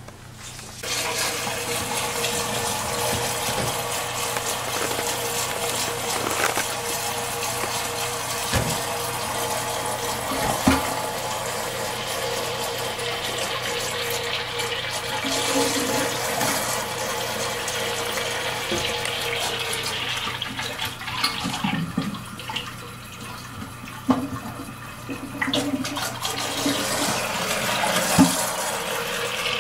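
Toilet cistern refilling: water hissing steadily through the fill valve into the tank, with a faint steady whine through the first two-thirds and a few knocks from hands working the parts inside the tank.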